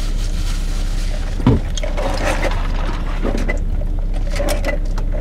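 Steady low rumble of a car idling, heard inside its cabin, with a single thump about one and a half seconds in.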